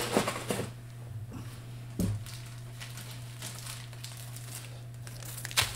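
Plastic bag of model-kit parts crinkling and rustling in a few short bursts, with a sharper rustle just before the end, over a steady low hum.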